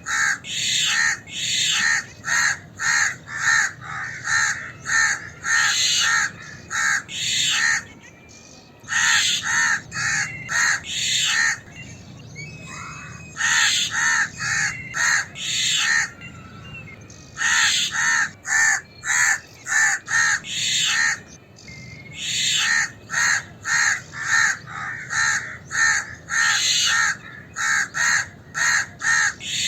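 House crows cawing in alarm: harsh caws about two a second, in bouts of several seconds broken by short pauses.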